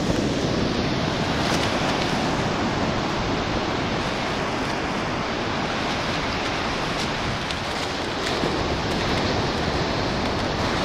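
Steady rushing noise of surf breaking on the beach, mixed with wind.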